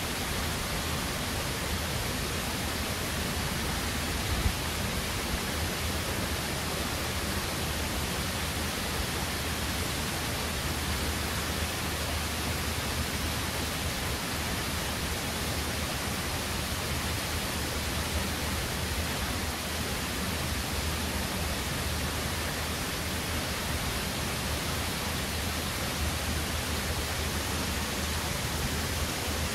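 Tempesta Falls rushing steadily over its rock ledges, a constant even wash of falling water, with a single brief knock about four seconds in.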